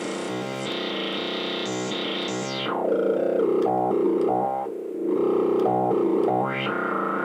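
Software synthesizer (the 'Rolend JP-680' VST) playing a rhythmic pattern of pitched chord stabs. Its filter sweeps down about two and a half seconds in, leaving a duller, louder middle, and sweeps back up near the end.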